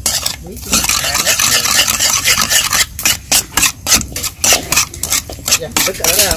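A utensil stirring and scraping in a cooking vessel, in quick repeated strokes a few times a second.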